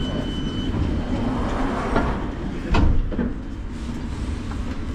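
Low, steady rumble inside a London Underground Victoria line train carriage, with one loud thump about three seconds in.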